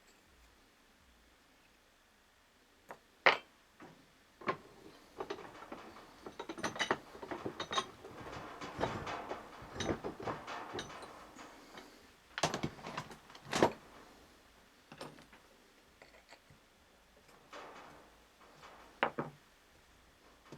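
Metal parts and tools being handled while a universal joint is assembled: irregular sharp clinks and knocks, the loudest a few seconds in, with a stretch of scraping and clatter in the middle.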